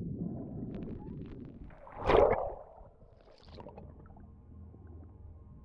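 Water rushing and gurgling past a rowed currach's hull, heard underwater, with one loud splash about two seconds in. After the splash it drops to a faint low hum.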